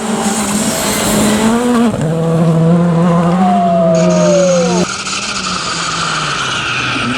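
Rally car engines running at high revs. The pitch steps down about two seconds in, and a falling whistle sounds over the engine. A little before five seconds the sound cuts abruptly to another car's engine running steadily.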